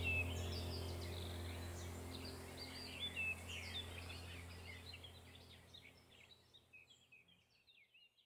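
Birds chirping and twittering over a low steady hum, the whole sound fading out to silence by the end.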